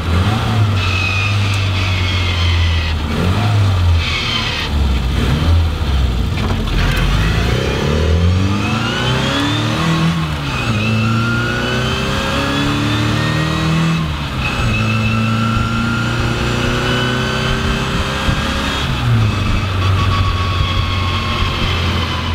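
Classic Mini's A-series engine pulling hard through the gears, its pitch climbing and then dropping back at each shift, several times over. A thin high whine rises alongside it with the revs.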